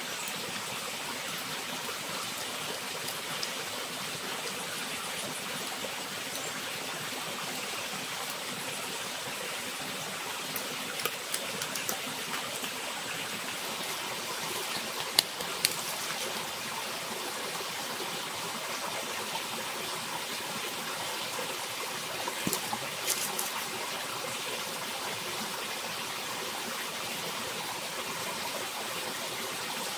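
Steady rush of a forest stream, with a few short sharp clicks about a third of the way in, halfway, and again about three quarters of the way through.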